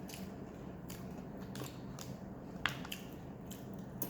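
Someone chewing a fast-food shrimp sandwich: soft irregular crunches and small mouth clicks, one sharper click a little past halfway, over a steady low hum.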